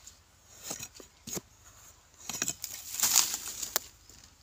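Hand-digging in dry, crumbly soil: a few sharp knocks, then scraping and rustling as earth is clawed away, loudest about three seconds in, with one more knock near the end.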